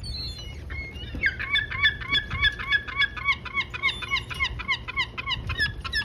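Gull giving a long call: a fast run of repeated, arched yelping notes, about five a second, starting about a second in and lasting some four and a half seconds.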